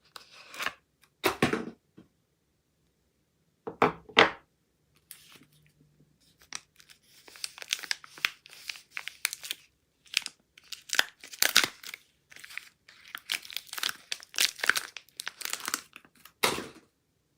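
Soap wrapping being torn open and crinkled by hand, in irregular bursts with short pauses, busiest in the second half.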